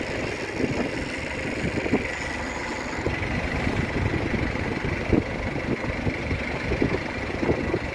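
Fishing boat's engine running steadily under way, with wind and water noise, and a few brief knocks about 2, 5 and 7.5 seconds in.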